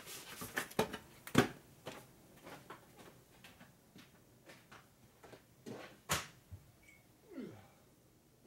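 Clicks, taps and clunks of metal parts being handled and set down on a workbench, with two sharp knocks standing out, about a second and a half in and about six seconds in.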